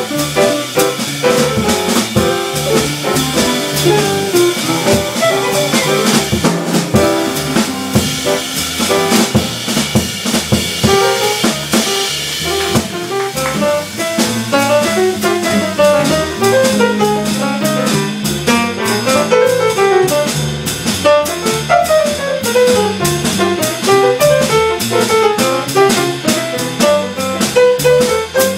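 Live bebop jazz from a quartet of archtop electric guitar, piano, upright bass and drum kit, with fast runs of notes over a busy cymbal and drum rhythm.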